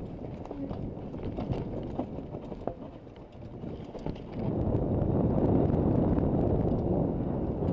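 Kona Stab downhill mountain bike ridden fast down a dirt trail: tyre noise over dirt and roots with rattling and sharp knocks from the bike, and wind on the camera microphone. About halfway in it grows to a louder, steady rush.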